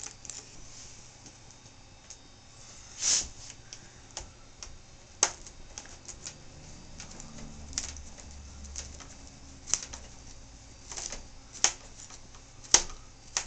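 Scattered light clicks and taps of a small Phillips screwdriver and fingers working screws out of a netbook's plastic screen bezel, irregular and about ten in all, with the loudest about three seconds in.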